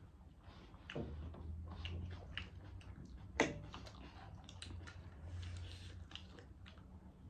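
Eating at the table: chewing of spicy instant noodles and small clicks of metal forks against plates, with one sharper click about three and a half seconds in. A steady low hum runs underneath.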